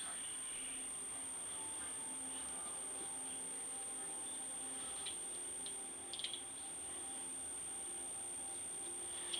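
A steady, very high-pitched electronic tone sounding without a break, with faint lower held notes beneath it and a few short clicks about five to six seconds in.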